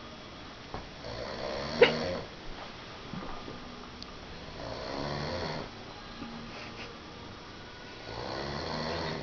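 Snoring: three long snores, each about a second long and about three and a half seconds apart, the first with a sharp click-like catch in it.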